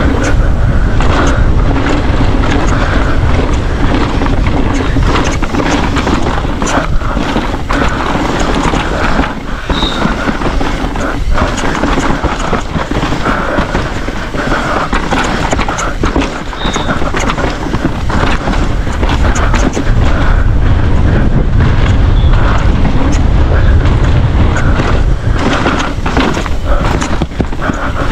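Mountain bike descending a dry dirt trail: tyres on dirt and the bike knocking and rattling over bumps, under heavy wind rumble on the camera microphone.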